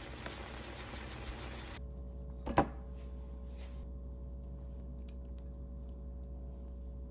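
A single sharp knock or tap about two and a half seconds in, over quiet room tone with a few faint scattered clicks.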